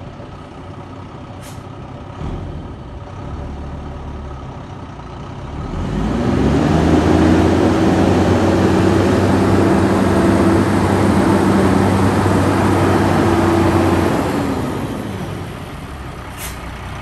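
1995 Ford L9000 truck tractor's diesel engine running low at first, then rising in revs about six seconds in as the truck drives, holding steady for several seconds and dropping back near the end. Two brief high-pitched hisses, one near the start and one near the end.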